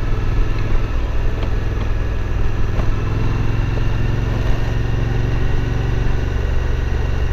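Suzuki V-Strom 1050's V-twin engine running at a steady, even pace while the motorcycle is ridden along a gravel road.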